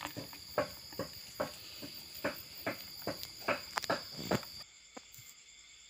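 Steady high-pitched insect chorus, with about a dozen irregular clicks and taps over the first four seconds or so; the chorus drops in level about four and a half seconds in.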